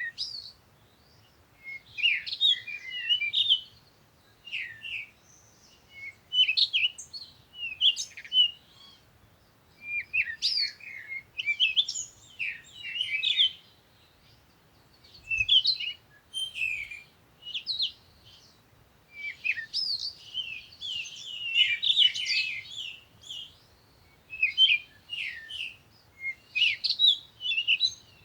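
Short bursts of high, fast chirping and trilling calls, repeating every one to two seconds with brief gaps between.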